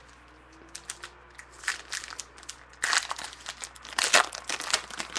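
Foil trading-card pack wrapper crinkling as it is torn open, in irregular crackling bursts that grow louder about three seconds in.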